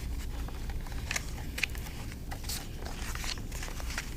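Scattered light rustles and small clicks of a picture book being handled and its pages turned, over a steady low room hum.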